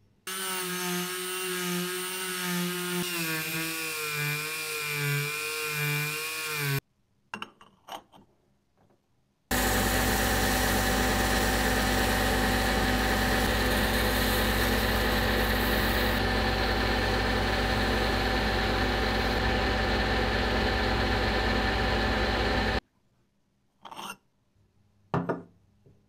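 A metal lathe runs steadily for about thirteen seconds while the spinning brass bell gong is polished by hand, a constant machine noise with a fixed hum under a hiss. Before it, another power tool runs for several seconds with a wavering pitch. Short knocks of metal parts set on a wooden workbench come in between and near the end.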